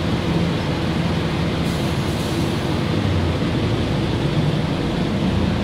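Inside a moving city bus: steady engine hum and road noise, the engine's low drone growing stronger about three seconds in.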